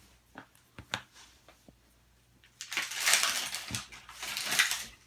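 Small plastic toy packaging being handled and unwrapped: a few light clicks and taps, then two spells of crinkling rustle.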